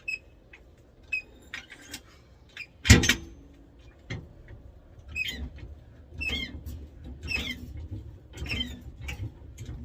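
Stock exhaust pipe of a Ford F-150 being worked loose and pulled out from under the truck: scattered knocks with one loud clank about three seconds in, then repeated squeaking and scraping as the pipe is twisted past the frame.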